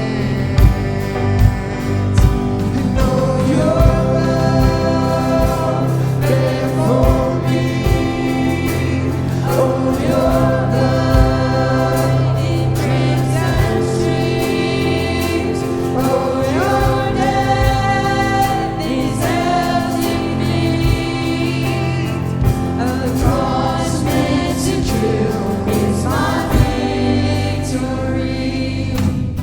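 Church worship band and singers performing a contemporary worship song, with voices singing a melody over sustained instruments and drum hits keeping a beat.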